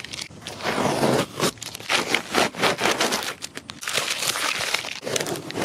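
Blue painter's tape being peeled off camper siding and crumpled into a ball by hand: a dense, irregular crinkling and crackling.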